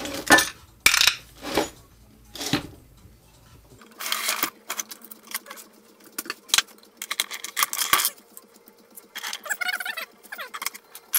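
Metal tools and engine parts clinking and clanking on the bench as a Suzuki DR-Z400 engine is taken apart: a string of separate sharp metallic strikes with short ringing. The strikes are loudest in the first few seconds and lighter after that.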